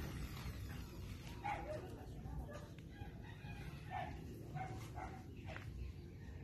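Chickens calling, with a rooster crowing: several short calls from about a second and a half in, over a low steady rumble.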